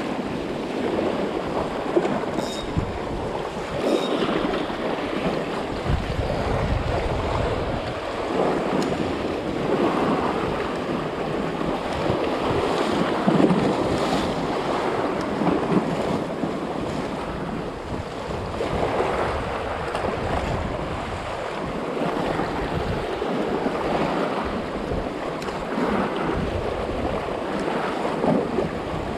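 Sea waves washing and splashing against shoreline rocks in repeated surges, with wind buffeting the microphone.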